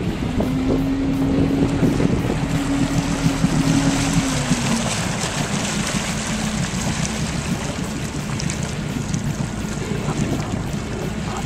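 Motorboat engine running under throttle while towing a water skier out of the water, a steady engine note that dips slightly and fades about four to five seconds in. Wind buffets the microphone and water rushes past the hull throughout.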